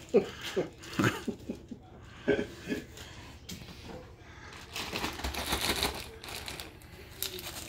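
Plastic zip-top bag crinkling and rustling as it is handled and its seal is pressed, with scattered light clicks and knocks.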